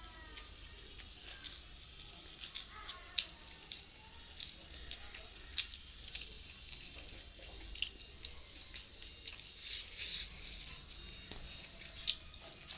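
Close-up eating sounds: wet mouth clicks and lip smacks while chewing, with fingers mixing rice on a steel plate. The clicks come irregularly, a few louder than the rest.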